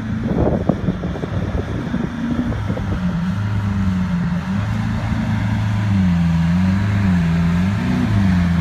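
Lamborghini Aventador SV's V12 running at low revs as the car creeps along, its note dipping and rising a few times in the second half with small throttle changes. Wind buffets the microphone in the first second or two.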